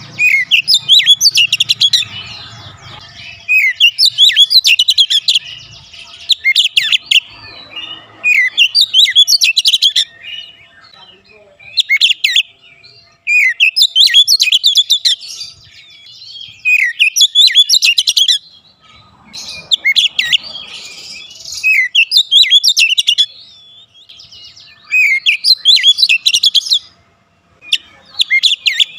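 Oriental magpie-robin singing loudly and continuously: phrases of rapid, varied whistles and chattering notes, one to two seconds long, with short pauses between them.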